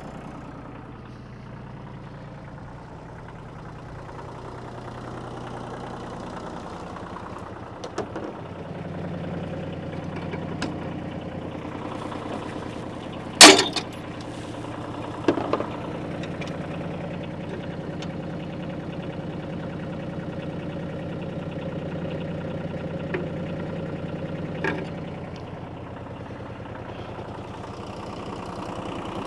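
New Holland tractor engine idling steadily, with a few sharp knocks from the backhoe's mounting pins and frame being fitted, one much louder than the rest about halfway through.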